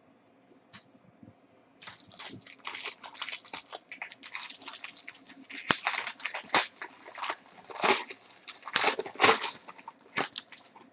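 Foil wrapper of a Bowman Draft baseball card pack crinkling and tearing as it is ripped open by hand, starting about two seconds in with a dense run of crackles.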